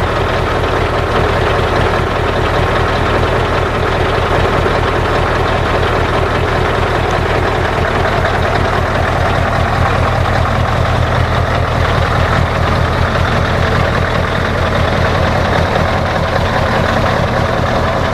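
Scania 460 V8 diesel truck engine idling steadily through a loud open exhaust pipe, with a deep, even pulsing beat.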